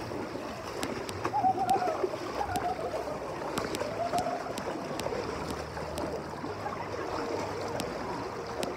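Water splashing and churning around people wading through a shallow water-park channel, a steady watery rush.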